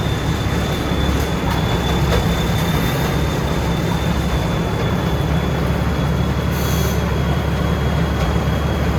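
Combine harvester running: the engine and threshing machinery make a steady, loud mechanical din with a deep rumble and a constant high whine.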